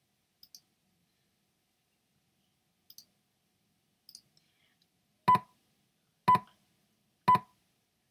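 iMovie voiceover recording countdown: three short beeps a second apart in the second half, the loudest sounds here. Before them come a few faint clicks.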